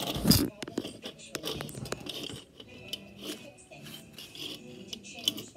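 Metal binder clips clicking and rattling as they are handled and fitted together, with a loud knock in the first half-second.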